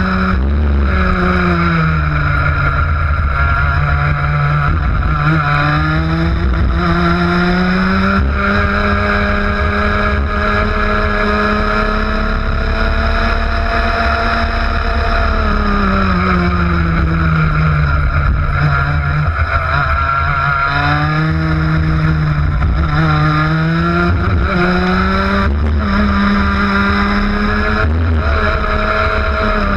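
Vortex ROK 125cc two-stroke kart engine running at race pace, heard from onboard: its pitch climbs as the throttle opens down the straights and drops away when the driver lifts for corners, over and over, with one long climb about a third of the way in.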